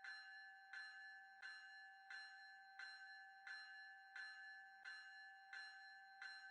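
Railroad grade crossing bell ringing steadily and faintly, about one and a half strikes a second, with its tone carrying on between strikes.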